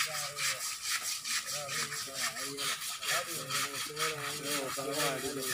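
Rapid rhythmic scrubbing strokes on an elephant's hide during its bath, about five rasping rubs a second.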